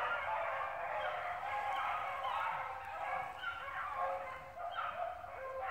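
A pack of rabbit hounds baying together while running a rabbit, many voices overlapping without a break.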